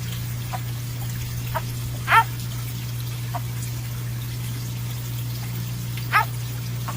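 An animal giving short, sharp cries, loudest about two seconds in and again near the end, with fainter ones between, over a steady low hum.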